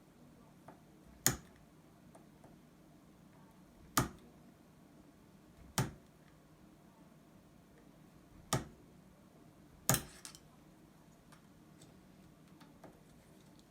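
Five sharp, separate knocks at uneven intervals, from RJ45 jacks being struck to pop out their contacts. Two of the knocks come close together near the end.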